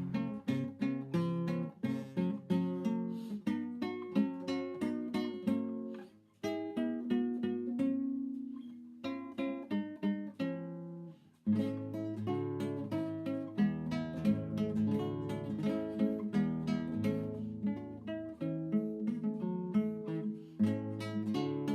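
Background music on acoustic guitar, plucked and strummed. It breaks off briefly twice, and lower bass notes come in after the second break, about halfway through.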